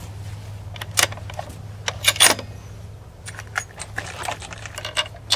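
A run of light metallic clicks and clinks, irregular and spaced out, loudest about two seconds in: small metal parts being handled at the shooting bench.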